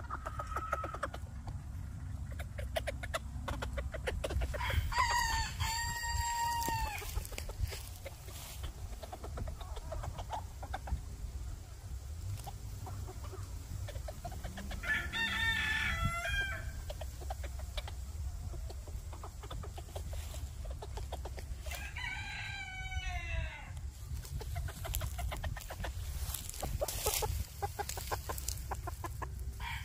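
Roosters crowing three times, each crow about a second and a half long and several seconds apart, over a steady low rumble.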